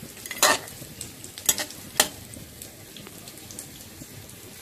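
A spatula stirring watery chicken curry in a metal pot, knocking against the pot three times in the first two seconds, over a steady hiss of the curry cooking.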